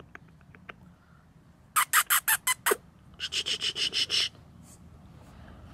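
Two quick runs of high-pitched squeaks, about six and then about eight in rapid succession, the second run starting about half a second after the first ends.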